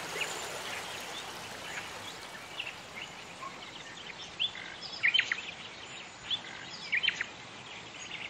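Birds chirping in short, scattered calls, a few at a time, most of them from about halfway through, over a faint steady hiss.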